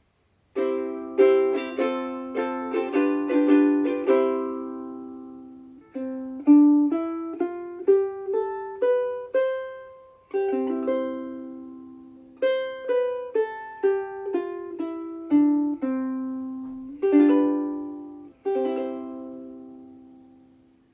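KOU SBSK-LN soprano longneck ukulele with a solid Hawaiian koa body, played solo. It opens with a quick run of strummed chords, then moves to a picked melody mixed with chords, the notes ringing out and decaying between phrases.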